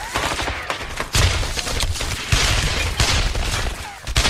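Battle gunfire: a dense, rapid crackle of rifle and machine-gun shots, with several heavier thuds among them.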